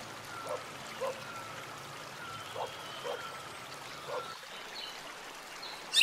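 A faint hiss of forest ambience with a few soft, short plips and thin, faint whistles, then near the end a loud, clear whistled call that rises and falls: a scarlet finch calling.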